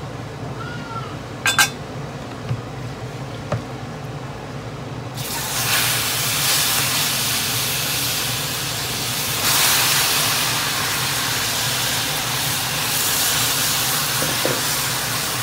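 Marinated chicken pieces going into a wok of hot browned sugar and oil. A loud, steady sizzle sets in about five seconds in and swells again about halfway through as more chicken goes in. Before the sizzle there are a few light clicks.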